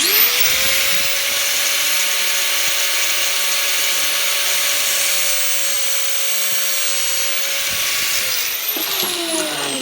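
Angle grinder switched on, spinning up to a steady whine while it cuts through a steel pipe-bending spring with a dense grinding hiss. It is switched off about eight seconds in and winds down, its pitch falling.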